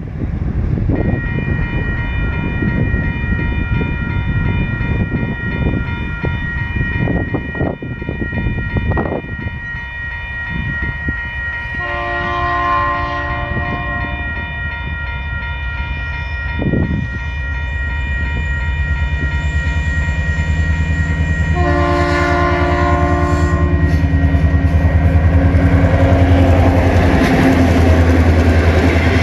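A level-crossing warning bell rings steadily. Around the middle and again about ten seconds later, a diesel locomotive's horn sounds two blasts of about two seconds each. Over the last third the low drone of TasRail locomotives 2051 and 2054's diesel engines grows louder as the train draws up to the crossing.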